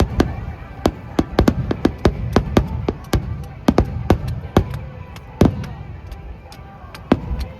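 Fireworks display: aerial shells bursting in quick, irregular succession, several sharp bangs a second over a low rumble. The bangs thin out after a loud one about five and a half seconds in, with another near the end.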